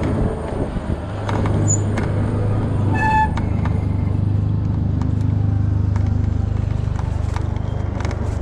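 Street traffic: a motor vehicle's engine running steadily close by, with a short beep about three seconds in.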